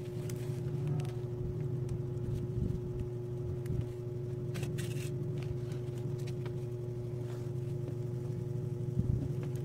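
Steady low machine hum with a constant tone, like a motor running. There are a few faint rustles and scrapes from a plastic ruler and a woven plastic sack being handled on a table.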